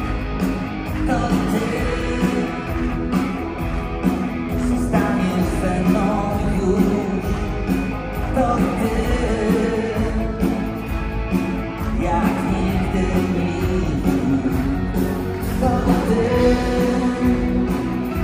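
A pop-rock song playing, with singing over guitar and band accompaniment.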